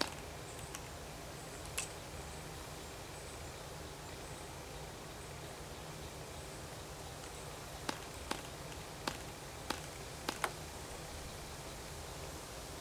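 Sharp clicks of a Cox Tee Dee .051 glow engine's propeller being flicked by hand to start it: one about two seconds in, then six in quick succession later on. The engine does not catch and run.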